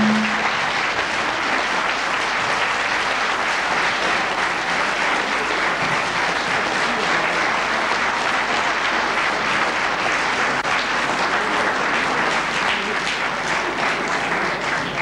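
Theatre audience applauding: a steady round of clapping that thins toward the end, with separate claps standing out more.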